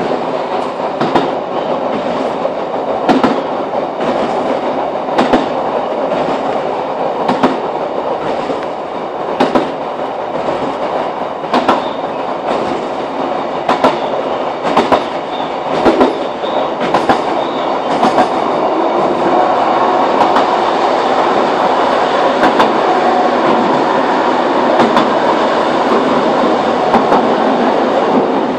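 Class 156 diesel multiple unit running at speed, heard from inside the carriage: a steady running noise with sharp wheel clicks over rail joints every second or so. About two-thirds of the way through the running noise grows louder and steadier, with fewer clicks.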